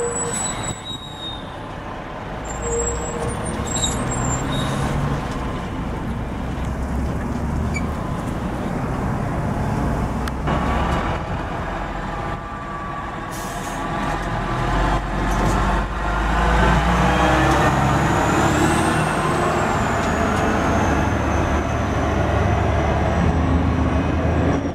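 Diesel semi-trucks hauling belly-dump gravel trailers run past with a deep engine rumble. Their engine note climbs as one accelerates, and a high squeal rises and then falls away late on.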